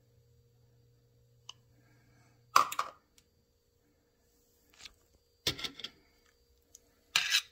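Metal spoon clinking and scraping against a stainless steel pan as fettuccine and Parmesan are stirred, in three short clattery bursts: about two and a half seconds in, around five and a half seconds, and near the end.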